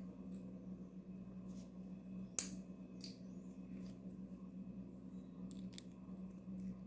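Lego bricks and Technic parts being handled and pressed together: a few scattered plastic clicks, one sharper snap about two and a half seconds in, over a steady low hum.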